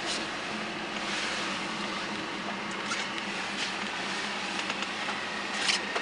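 Steady car cabin noise: the engine runs with a low even hum under a hiss of road noise, with a few short clicks near the end.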